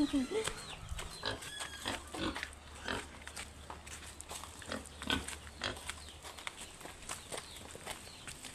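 Pigs grunting, among scattered short clicks and knocks.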